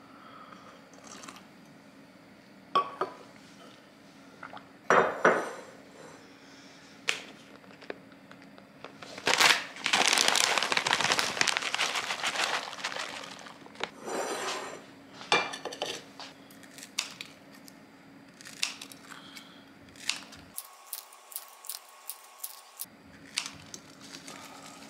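Kitchen prep sounds: scattered knocks and clinks of a glass mixing bowl and dishes on a stone countertop. About ten seconds in comes a few seconds of loud rustling and crinkling as shredded cheese is shaken from its bag over romaine lettuce.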